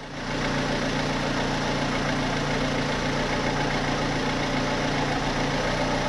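Vauxhall Z12XEP 1.2-litre four-cylinder 16-valve petrol engine idling steadily. Its top end is rattling "like an old sewing machine", which the owner puts down to worn camshafts and hydraulic tappets.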